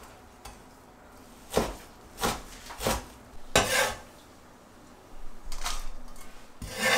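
Kitchen cleaver knocking on a wooden chopping board and clinking against a stainless steel bowl as chopped wild greens are moved into it: about six separate knocks and clinks, with a short scraping stretch near the end.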